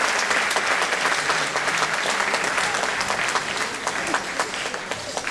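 Audience applause, many hands clapping, gradually thinning and getting quieter.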